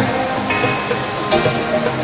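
Background music: held notes that change pitch every second or so.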